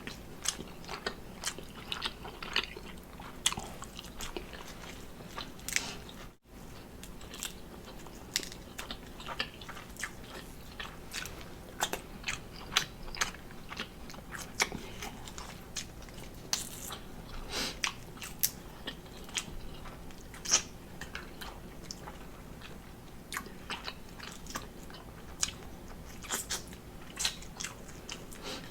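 A person chewing and biting into boiled seafood: a steady run of irregular short clicks and smacks of mouth sounds, several a second.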